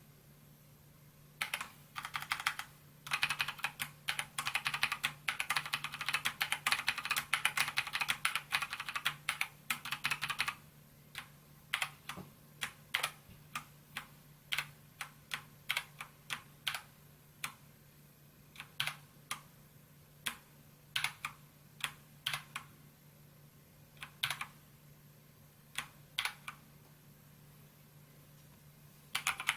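Keys typed on a SKYDIGITAL NKEY-R3 mechanical keyboard with PBT keycaps. A fast run of typing lasts several seconds, then single keystrokes come one at a time, about a second apart, before a short pause and a little more typing at the end.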